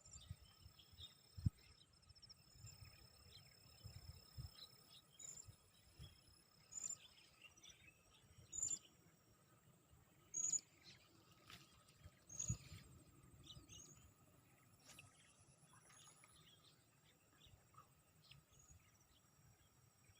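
Faint outdoor ambience: a bird calling in short, high, hooked chirps every second or two over a steady high insect drone. A single sharp knock comes about a second and a half in.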